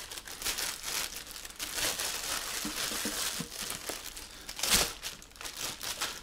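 Clear plastic bag crinkling and rustling as it is handled and pulled off a boxed lamp, irregular throughout, with a louder rustle a little under five seconds in.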